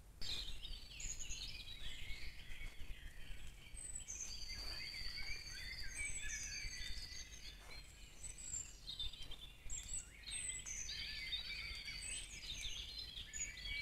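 Several songbirds singing at once, a dawn chorus of overlapping whistles, trills and chirps, over a low steady rumble.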